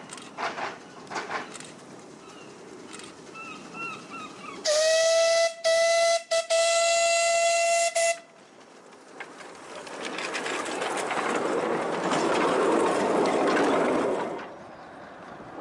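Miniature-railway steam locomotive's whistle, one steady tone sounded three times in quick succession, the last toot the longest. Then the train runs close past: a rising rush of wheels and steam that cuts off suddenly.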